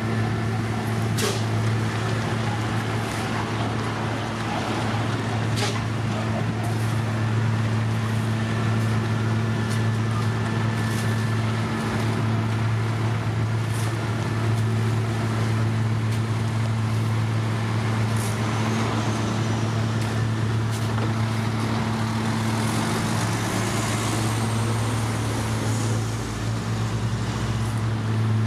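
Heavy diesel machinery running steadily with a constant low hum: an asphalt paver working while a dump truck feeds it mix. A few light clicks are heard now and then.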